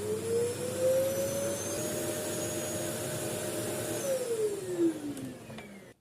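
Thomas Multi Cyclone Pro 14 vacuum cleaner running: the motor's whine rises to a steady pitch over the first two seconds, holds, then falls from about four seconds in as the motor winds down, and stops just before the end.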